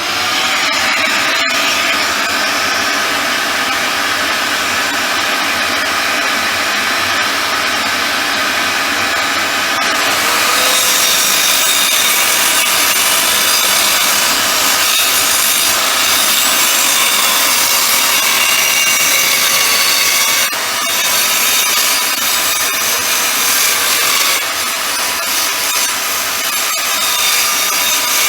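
Tacklife mini circular saw running at full speed and cutting through wood, a steady loud whine of motor and blade. The cut grows harsher about ten seconds in, with brief dips in level around two-thirds of the way through.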